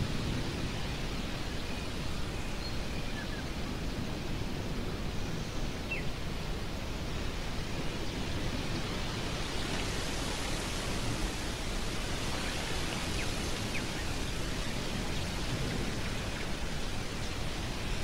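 Strong stormy wind rushing steadily, with a few faint, short bird chirps scattered through it.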